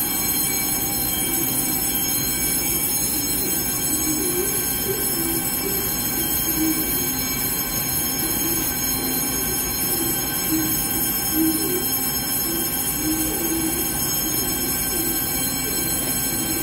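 Taiwan Railway EMU3000 electric multiple unit standing at an underground platform with its doors open. Its equipment gives a steady electrical hum with several high, constant whining tones.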